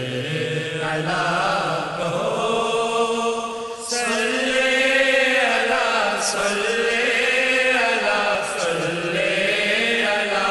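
Devotional Urdu durood sung as a chant: a voice draws out a long, wavering melismatic phrase over a steady held hum.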